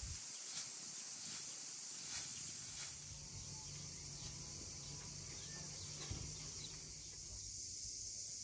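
A short straw hand broom sweeping a stone path, about five strokes in the first three seconds. Under it, a steady high-pitched chorus of insects.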